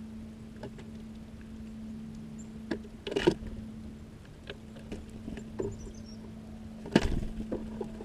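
Scattered light taps and scrapes on a small wooden bird feeder house, with two louder thumps, one about three seconds in and one near the end, typical of small birds landing and moving on it. A steady low hum runs underneath, and faint high chirps come in past the middle.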